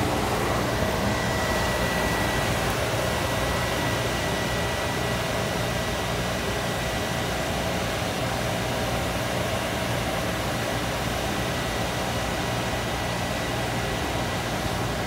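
7.5 hp fan of a HEPAD portable grain-bin dryer running steadily, blowing air through a flexible duct into the bin. A steady rush of air carries a thin high whine that sets in about half a second in.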